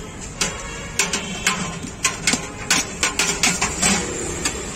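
Steel cookware clinking and knocking as rice is served from a large steel pot: about a dozen sharp, irregular metal knocks.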